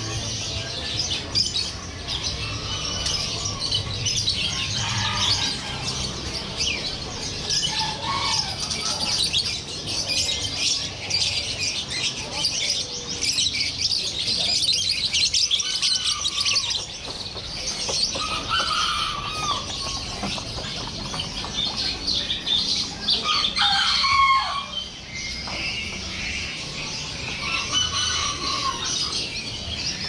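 Dense chorus of many caged birds chirping and twittering at once, with louder single calls standing out now and then over a faint low hum.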